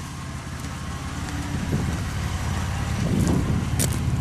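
2001 Ford Ranger's 4.0-litre V6 running as the truck drives, growing louder from about a second and a half in as it picks up. It runs smoothly, its misfire cured. A few light clicks near the end.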